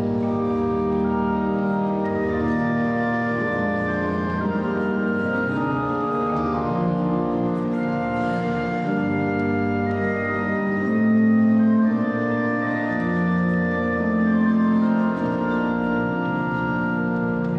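Organ playing slow, sustained chords over a low bass line, the chords changing every second or two.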